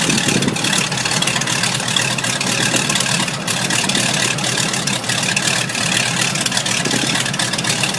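An engine running steadily at low speed, with no rise or fall.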